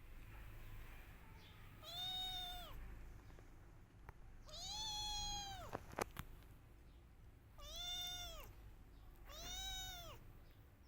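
Kitten meowing four times, each cry about a second long, rising then falling in pitch: a kitten crying for its mother. A sharp click about six seconds in.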